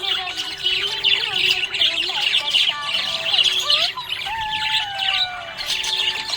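Budgie (budgerigar) chirping and chattering continuously in rapid high chirps, with some gliding whistled notes mixed in.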